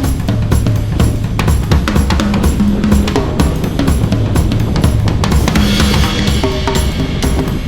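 Background music with a steady drum-kit beat of bass drum and snare over a bass line. A cymbal wash swells about three-quarters of the way through.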